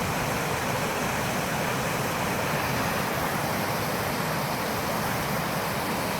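Fast meltwater running high in a flooded creek during the spring thaw: a steady, even rush of water, sluicing under the remaining ice and churning up foam.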